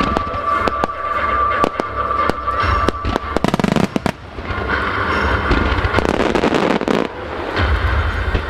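Aerial fireworks of a starmine barrage bursting in quick succession with sharp bangs. About three and a half seconds in comes a dense run of rapid crackling pops.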